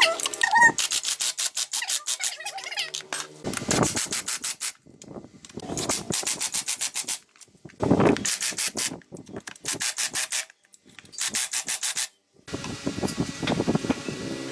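Hand sanding on a motorcycle part: quick back-and-forth abrasive strokes, about eight to ten a second, in short bursts of a second or so with brief pauses between. Near the end the strokes give way to a steadier hiss.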